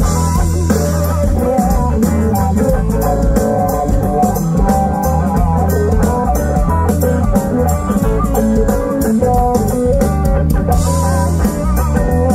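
Live band playing amplified rock through a PA: electric guitar lines over bass guitar and a drum kit with steady cymbal hits.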